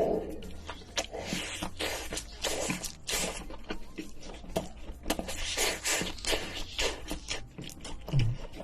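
Close-miked mouth sounds of someone eating: chewing, with many small, irregular clicks and crunches.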